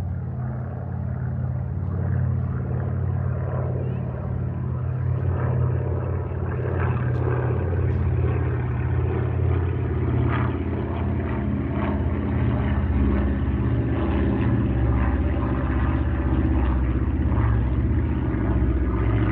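Steady engine drone: a loud, low hum of several steady tones with a rougher layer above it.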